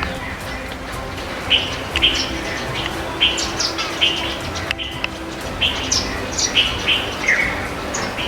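Small songbirds chirping: short, sharp calls repeated about every half second, some notes higher and some sliding down.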